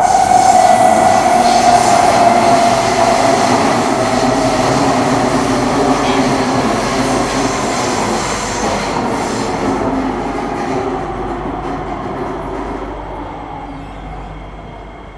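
Singapore MRT train slowing to a stop at a station. Its running noise fades steadily as it loses speed, and a high whine slides slowly downward in pitch during the first few seconds.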